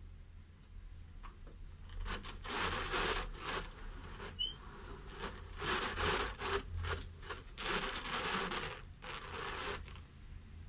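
Large hand-cranked drum carder turning as a layer of blue-faced Leicester wool is fed in: the wire carding cloth brushing through the fibre in several spurts of scratchy rushing noise from about two seconds in until near the end, with a quick run of high squeaks partway through.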